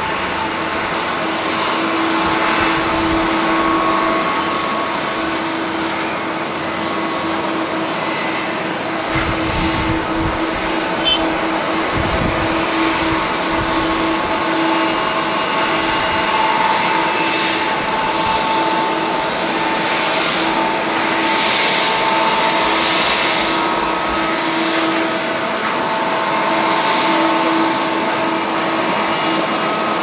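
Jet engines of a Boeing 777 airliner running steadily at taxi power, a whine of several held tones over a rushing roar. Wind rumbles on the microphone in gusts about a third of the way in.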